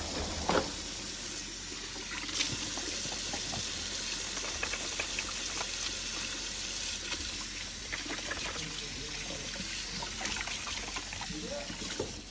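Kitchen tap running steadily into a sink, with a few light knocks.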